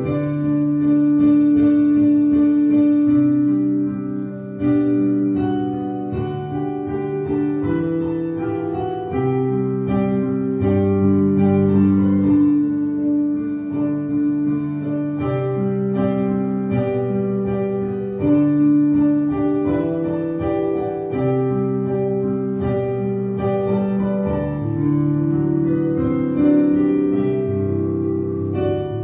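Keyboard playing slow, held chords that change every second or two.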